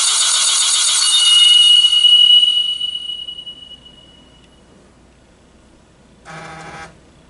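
Pachinko machine's electronic sound effects: a bright ringing chime with a held high tone that fades away over about two seconds, then a short electronic tone about six seconds in.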